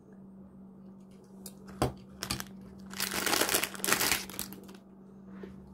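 Crinkling of a plastic Hot Wheels mystery blind-bag wrapper being picked up and handled, loudest for about a second past the middle. A single sharp knock sounds a little before it.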